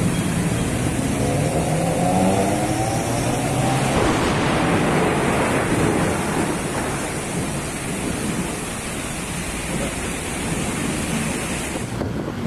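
A road vehicle's engine passing, its pitch rising over the first few seconds, then a steady rush of tyre noise on a wet road, which changes abruptly just before the end.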